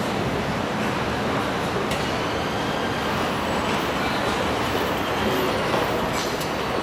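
2013 ThyssenKrupp escalator running with a steady mechanical noise from its moving steps and drive, with a couple of faint clicks.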